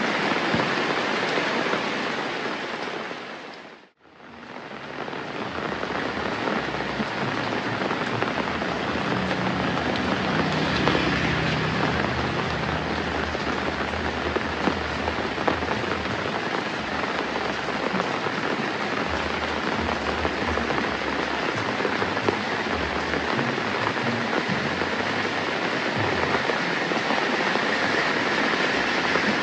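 Steady rain falling and hissing on surfaces. It fades briefly to silence about four seconds in, then returns.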